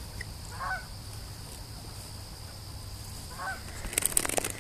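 Geese honking, two short calls about a second and three seconds apart. A loud burst of crackling clicks follows near the end.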